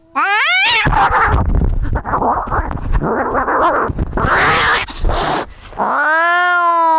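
Domestic cats fighting: a short rising yowl, then about five seconds of a noisy, jumbled scuffle, then a long, steady caterwaul starting about six seconds in.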